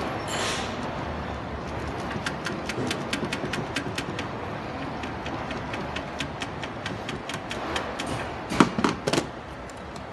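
Hands working a miniature circuit breaker loose from its mounting in an enclosure: many small rapid clicks, then a few sharp knocks near the end. Steady background noise underneath.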